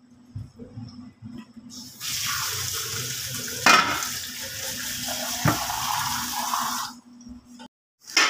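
A metal pot lid knocking twice against the cooking pot as the pulao is covered for steaming, over a steady hiss that starts about two seconds in and stops near the end.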